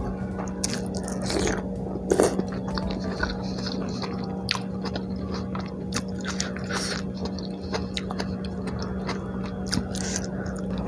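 Close-miked chewing of the last mouthful of an egg martabak meal: many small wet clicks and smacks scattered irregularly, over a steady low hum.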